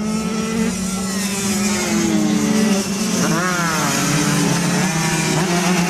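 Two-stroke Yamaha F1ZR road-race motorcycles, tuned to 130 cc, running at high revs. About three seconds in, one engine's pitch rises and then falls.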